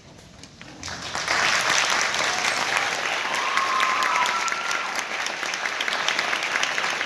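Concert-hall audience applauding, swelling sharply about a second in and staying loud. A brief whistle rises above the clapping near the middle.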